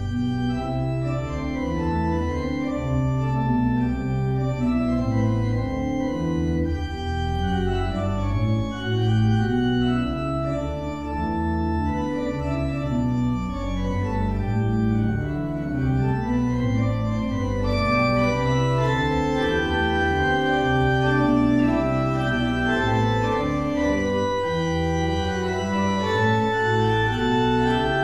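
Church organ playing a slow piece: sustained chords that change every second or so over a steady bass line.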